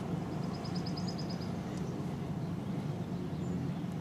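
A small bird's rapid, high, evenly spaced trill lasting about a second near the start, over a steady low outdoor background hum.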